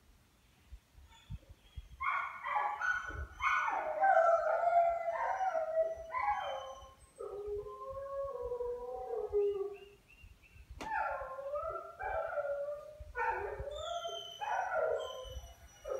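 Several kennelled dogs howling together in a chorus of overlapping, wavering howls that begin about two seconds in, dip briefly past the middle and rise again. A single sharp click sounds just after the lull.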